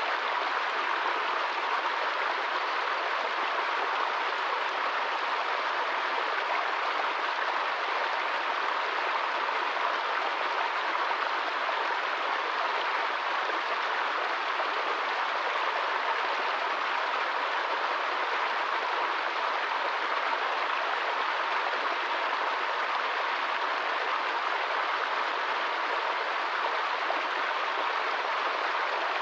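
Small stream spilling down a short cascade over rocks: a steady rush and splash of water.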